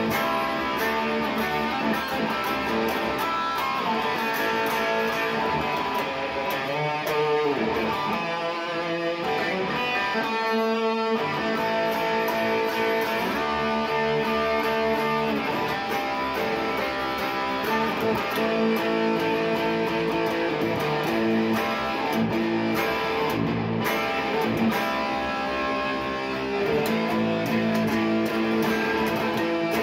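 Electric guitar played lead style, a continuous stream of notes with some bent notes about a quarter of the way in.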